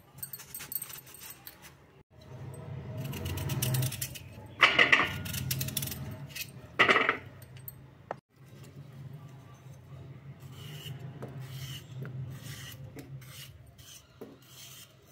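Kitchen handling noises from preparing raw potatoes: rubbing, two louder clatters about five and seven seconds in, and light clicks of a knife cutting potato into sticks near the end, over a low steady hum.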